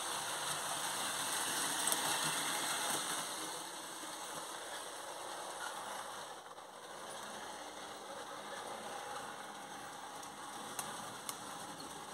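H0-scale model trains running on the layout: a steady rattling whir of small electric motors and metal wheels on the rails, a little louder in the first few seconds, with two short clicks near the end.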